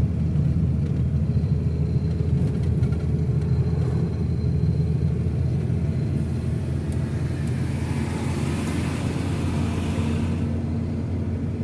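Motor vehicle driving along: a steady low engine drone with road noise. A brighter hiss swells about halfway through and fades near the end.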